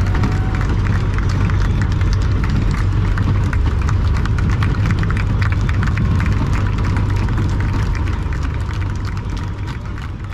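A competition pulling tractor's engine running at low revs while it rolls slowly, heard from inside the cab as a deep steady rumble with irregular sharp crackles over it. The sound fades out near the end.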